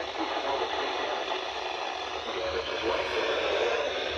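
Radio receiver giving a hissing, noisy signal with indistinct, garbled speech underneath. Its sound is thin and cut off in the highs.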